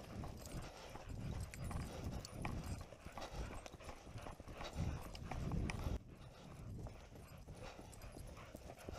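Footsteps of a person walking briskly through tall grass and brush, uneven thuds with rustling of vegetation; the rustling drops off abruptly about six seconds in.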